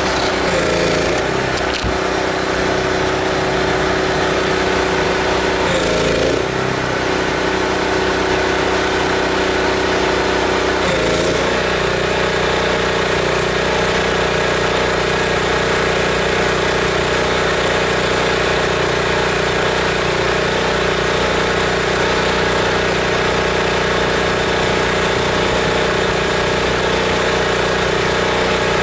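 Gas engine of a pressure washer running steadily, its note shifting briefly about a second, six seconds and eleven seconds in, then holding steady.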